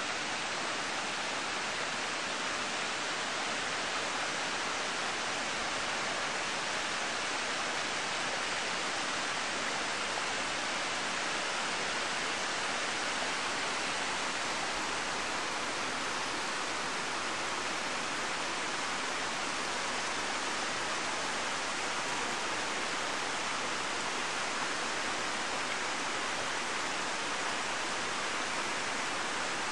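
Steady rush of mountain waterfalls cascading down steep rock slabs.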